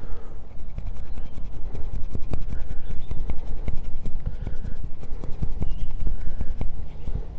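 Convex-grind bushcraft knife shaving a stick of hard seasoned wood into a feather stick: a quick run of short scraping strokes, one after another. Each push bites deep into the wood.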